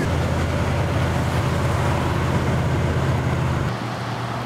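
Low steady drone of a car's engine and road noise heard inside the cabin of a moving car. The drone drops off suddenly near the end, leaving a quieter rumble of driving.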